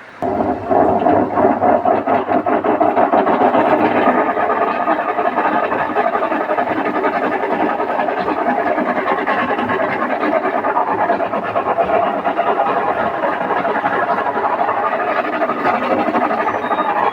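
Whirlpool washing machine running, a loud, steady, dense mechanical noise that starts suddenly as it is switched on.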